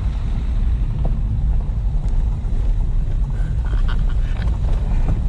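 Renault Duster SUV crawling over a rough, stony dirt track, heard from inside the cabin: a steady low rumble of engine and tyres on the stones, with a few faint clicks about four seconds in.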